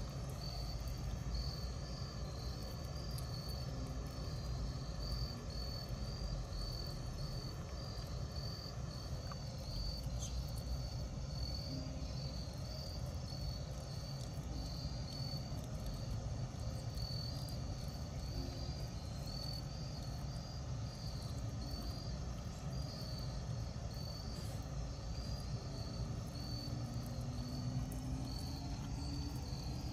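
A cricket chirping steadily outdoors, a long run of short, high, evenly repeated chirps, over a low steady rumble.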